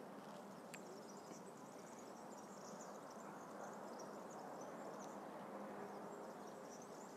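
Faint open-air ambience: a low hiss with thin, high chirping, and a single small click about a second in.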